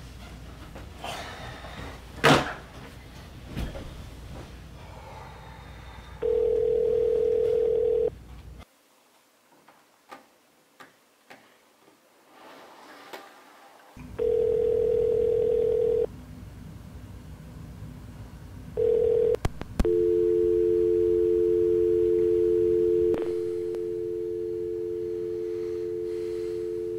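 Telephone tones heard through a phone held to the ear: ringing tones about two seconds long, then a short beep and a steady two-note dial tone from about twenty seconds in, which drops in level a few seconds later. A sharp click comes about two seconds in.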